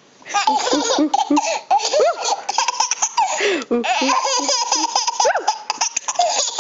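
Two babies laughing hard together, with squealing belly laughs that begin about a third of a second in and carry on in quick repeated bursts.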